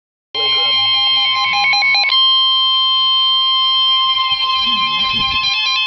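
Emergency alert attention tone: a loud, steady, high-pitched alarm tone starts about a third of a second in, with a pattern of short tones stepping quickly up and down in pitch laid over it in the first two seconds and again near the end.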